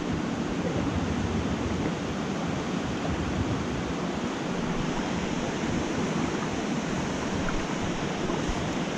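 Steady rushing of fast-flowing river water.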